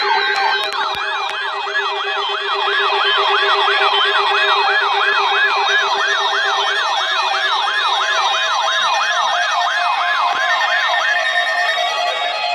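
Several electronic sirens sounding together: a yelp sweeping up and down about two and a half times a second, layered with faster, higher warbles and a steady low tone that drops out a little past halfway.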